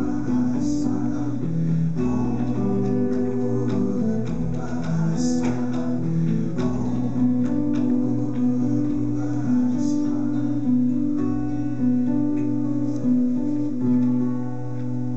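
Live ensemble music: singing over acoustic guitar with a steady low drone underneath and light hand-drum strikes, easing off near the end.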